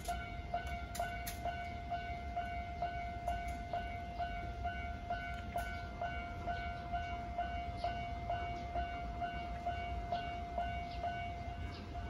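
Japanese railway level-crossing alarm ringing its repeated electronic 'kan-kan' tone, a little over two strikes a second, signalling that a train is approaching. A steady low rumble sits underneath.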